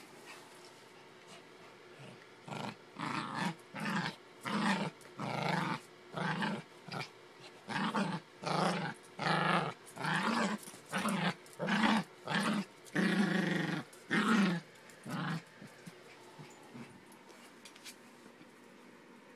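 Yorkshire terrier play-growling as it attacks a plush toy: a rapid string of short growls, starting a couple of seconds in and stopping near the end.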